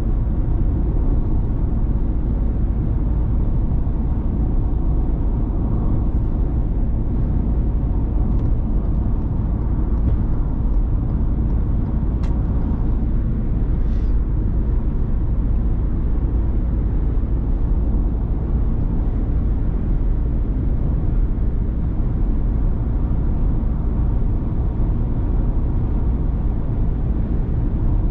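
Ford Transit Custom diesel van driving: a steady low rumble of engine and road noise, with two short clicks about twelve and fourteen seconds in.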